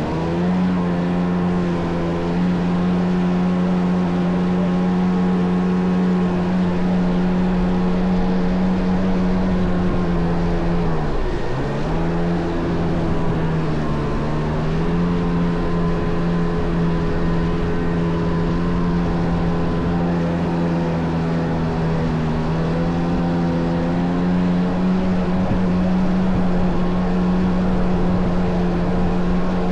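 Kawasaki JS550 stand-up jet ski with a swapped-in 650 two-stroke twin, running at a steady cruising throttle over a constant rush of noise. The engine note drops sharply and climbs back about eleven seconds in, dips again around fourteen seconds, and sags slightly a little past twenty-two seconds as the throttle is eased and reopened.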